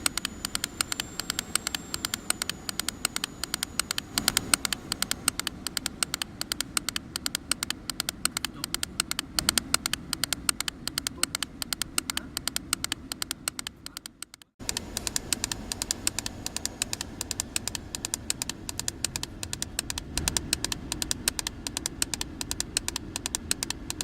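Rapid cracking and clicking from the centre-air-vent flap actuator (Hella-Behr A2038201642) behind a Mercedes-Benz W203's centre console. Its worn-down gear skips as the automatic climate control keeps trying to move the flaps without success. The clicking breaks off for a moment about two-thirds of the way through, then carries on.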